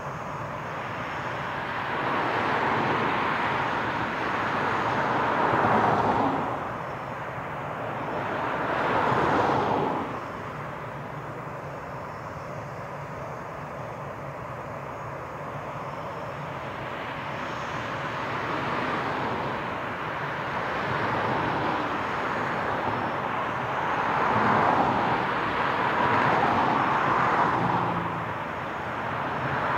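Jet engine noise from a Boeing E-3B Sentry's four Pratt & Whitney TF33 turbofans running at high power as the jet starts its takeoff roll. It is a steady rumble that swells and fades several times.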